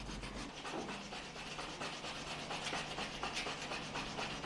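Rubbing on a painted surface: a rapid run of strokes as paint is rubbed back by hand and with a flat tool, bringing out grain-like marks from the red layer underneath.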